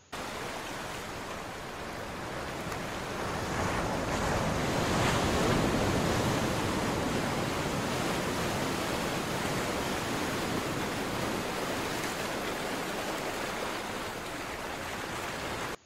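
Ocean-surf sound effect: a steady rushing hiss of waves that swells a few seconds in, then cuts off abruptly.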